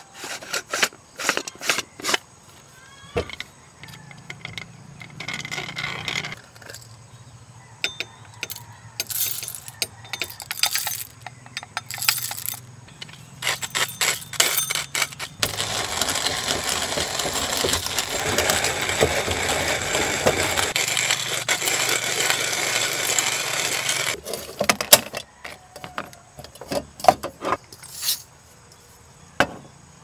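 Kalita wooden hand coffee grinder: a string of clicks and rattles as it is handled and loaded. From about halfway through comes roughly eight seconds of continuous grinding of coffee beans, which stops abruptly, followed by a few more knocks.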